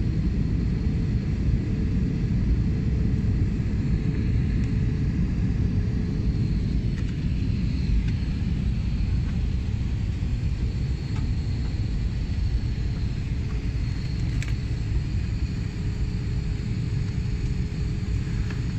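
Jet airliner cabin noise in flight: a steady low rumble of engines and rushing air, with a faint steady hum over it.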